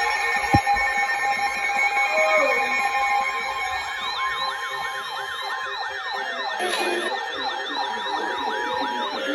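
Several overlapping electronic sirens sweeping up and down in quick repeated yelps, mixed with the steady beeps of emergency-alert tones and a short screech of alert data about two-thirds of the way through. A sharp thump about half a second in.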